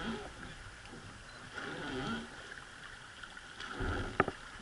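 River water rushing and lapping along the side of a moving wooden river boat, with a single sharp knock about four seconds in.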